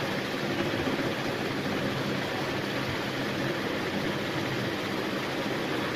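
Steady background room noise: an even hiss with a faint low hum underneath, unchanging throughout.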